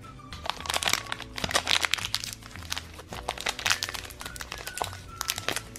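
Plastic wrapper of a Shopkins blind basket crinkling and crackling as it is handled and torn open, over light background music.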